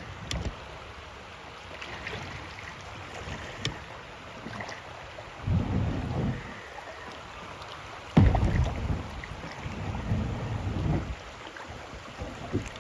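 Outdoor river noise from a kayak trip: a steady hiss with a few low rumbles, the loudest starting abruptly about eight seconds in and lasting a few seconds.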